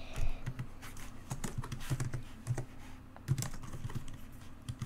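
Typing on a computer keyboard: a string of irregular keystroke clicks.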